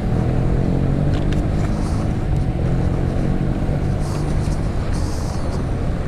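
A motor running with a steady low hum, with a few faint clicks and a short hiss about four seconds in.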